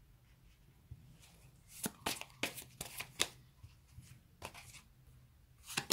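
Tarot cards being handled and shuffled: a run of short, crisp card snaps and taps, most of them about two to three seconds in, with a few more near the end.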